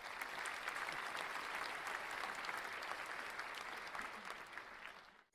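Crowd applause: a dense, steady patter of many hands clapping that fades a little and then cuts off abruptly at the end.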